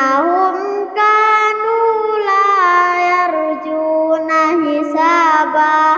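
A child chanting a verse of the Quran in melodic recitation, holding long notes that slide up and down between phrases, with brief pauses for breath.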